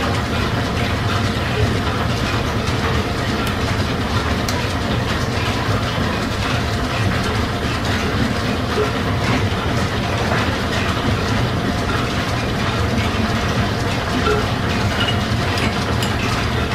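Steam-engine-driven line shafting and flat belts running steadily, with a constant low hum and a continuous mechanical clatter and a few faint clicks over it.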